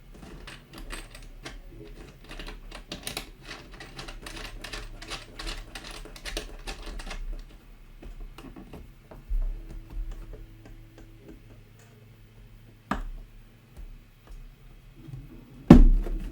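A rapid run of small clicks and taps, several a second, as the desoldering station's parts, gun hose and cable are handled. A few separate knocks follow later, the loudest near the end.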